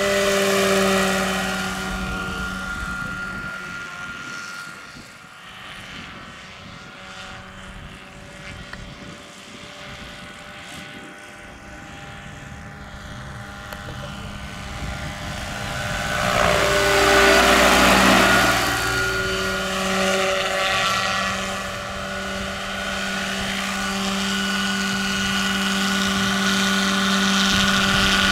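Electric radio-controlled scale model helicopter, a Lockheed XH-51N replica with a 2 m main rotor, in flight: a steady hum from the rotor and electric drive with a whine of several fixed tones. It grows loud as the model passes close, about a second in and again around 17 to 18 seconds, with a rushing swell at the second pass, and is quieter in between.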